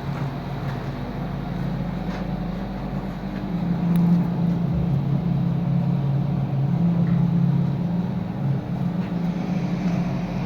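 20 HP rotary screw air compressor running with a steady low hum, getting louder about four seconds in.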